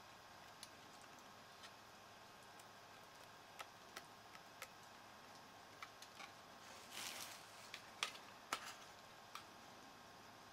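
Faint handling noise of a PNY GeForce 8800 Ultra graphics card being turned over in the hands: scattered light clicks and taps from its plastic cooler shroud and board, with a brief rustle about seven seconds in and two sharper clicks soon after. Otherwise near silence.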